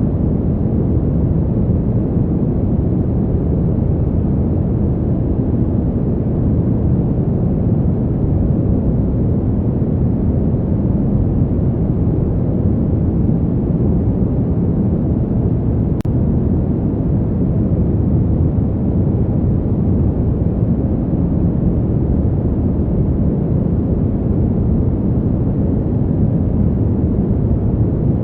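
Fan heater's blower running steadily: a deep, even rushing noise with no change in pitch or level.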